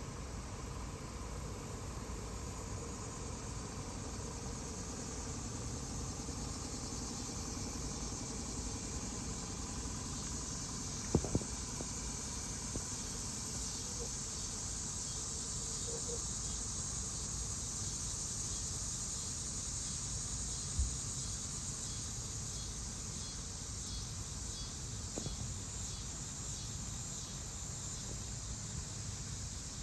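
Steady high-pitched insect chorus that swells in the middle, over a low outdoor rumble, broken by a sharp knock about a third of the way in and a dull thump about two-thirds in.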